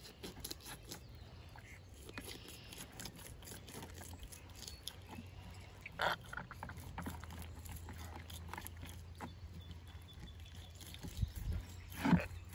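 Fillet knife cutting down along a northern pike's backbone, giving faint, irregular ticking and crackling as the blade crosses the rib bones, with one louder click about six seconds in.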